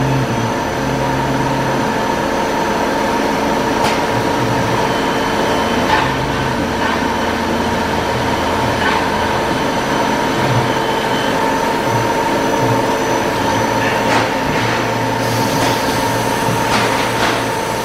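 Star SR20R CNC Swiss-type lathe and its coolant and parts-handling equipment running: a steady mechanical hum with a held whine, a low drone that cuts in and out, and a few sharp clicks.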